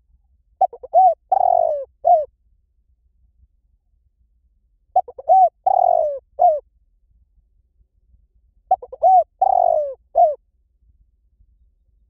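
Spotted dove cooing: three phrases about four seconds apart. Each is a few short coos, then a longer falling coo and a short final note.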